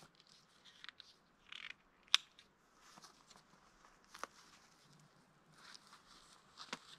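Faint rustling of feathers and a knife cutting through the skin and sinew of a grouse's wing, which has just been broken at the bone, with a few sharp clicks, the loudest about two seconds in.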